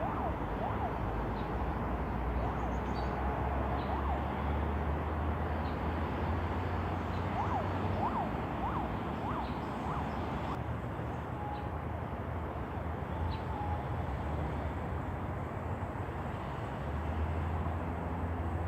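An emergency-vehicle siren sweeping quickly up and down in pitch, coming in several bursts, over a steady low rumble.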